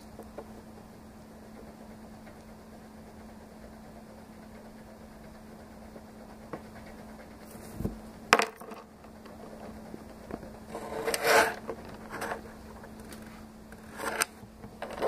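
Metal palette knife scraping and clicking against the palette and canvas: quiet for the first half, then a sharp click and a few short scrapes, the longest lasting under a second, over a steady low hum.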